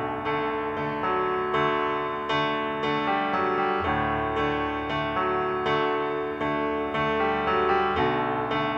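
Background music led by piano or electric piano, with notes struck at an even pace.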